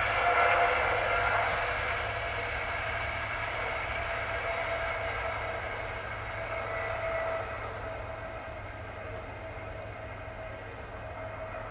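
Express passenger train passing at speed on the main line, a continuous rumble with steady tones that fades steadily as the train draws away.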